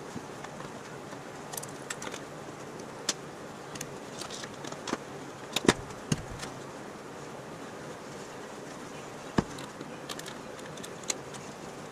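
Scattered sharp metal clinks and knocks as a sheet-metal car grille shell is handled and shifted on the bench, the loudest about halfway through, over a steady background hiss.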